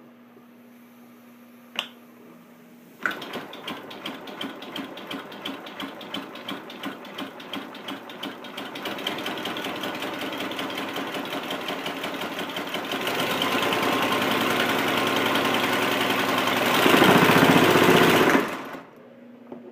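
Homemade compressed-air engine starting and running on the bench: a sharp click about two seconds in, then rhythmic air-exhaust puffs at about three a second that quicken and grow louder until they run together into a continuous mechanical chatter. It stops abruptly about a second before the end.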